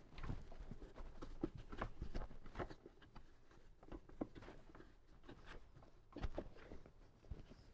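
Faint, scattered taps, scuffs and rustles of a wire being tucked under a Jeep's floor carpeting by hand, with a slightly louder cluster of knocks about six seconds in.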